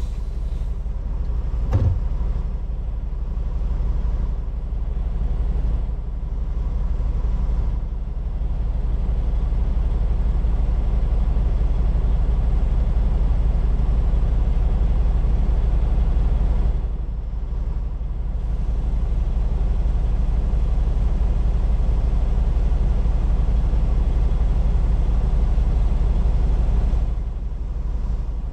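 Heavy-haul truck's diesel engine and road noise: a steady low rumble that eases off briefly three times, with a short knock about two seconds in.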